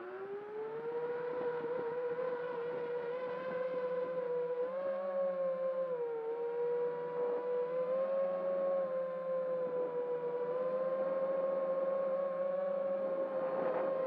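FPV quadcopter's electric motors and propellers whining, close up from the onboard camera. The pitch settles just after spin-up, then holds steady with small dips and rises as the throttle changes while the drone lifts off the grass and climbs.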